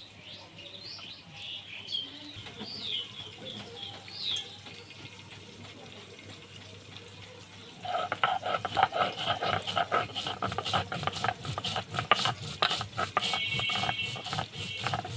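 Birds chirping for the first few seconds. Then, from about eight seconds in, rapid rhythmic scraping and knocking as cumin, ginger and garlic are ground into a paste on a grinding stone.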